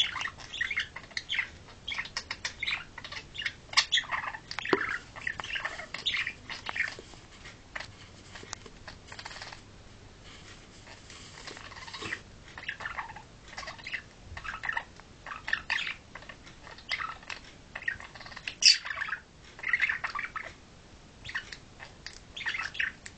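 Pet budgerigars chattering: a busy warble of short chirps, clicks and squawks, with a quieter stretch about halfway through and one sharp, high call about three quarters of the way in.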